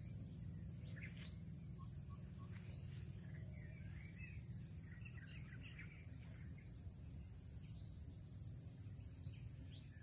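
Field ambience: a steady high-pitched insect drone, with faint scattered bird chirps and short calls over a low steady rumble.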